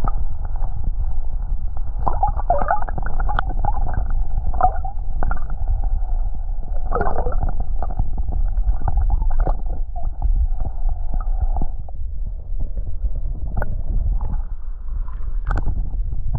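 Water sloshing and gurgling around a camera held under the lake surface, heard through its waterproof housing as a steady dull low rumble with a few sharp clicks scattered through it.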